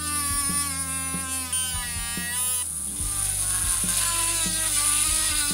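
Tiny DC motor from a camera, fitted to a 3D-printed miniature drill-milling machine, runs and spins a drill bit against a small block of wood. Scattered clicks come from the hand-turned table handwheels and feed screws. The motor's whine wavers in pitch for the first two and a half seconds, then steadies.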